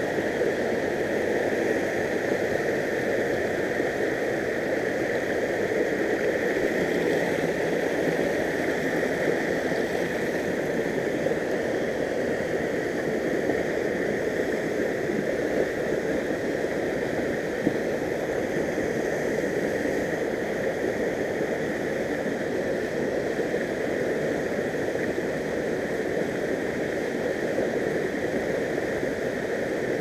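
Water pouring from the notch of a concrete erosion-control dam into a plunge pool, a steady rushing roar of falling water.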